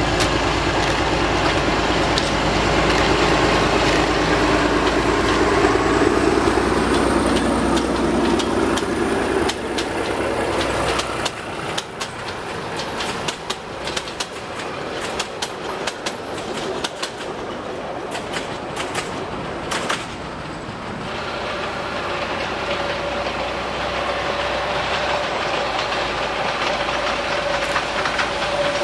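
ÖBB class 2095 narrow-gauge diesel-hydraulic locomotive running hard as it pulls its passenger coaches past. After about ten seconds the engine drops away and the wheels click sharply over the rail joints. From about two-thirds of the way in, a second diesel locomotive hauling a train of flat wagons approaches, its engine a steady hum.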